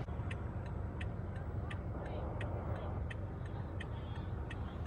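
A car's turn-signal indicator clicking at an even rate, a little under three clicks a second, over the low hum of the idling engine inside the cabin.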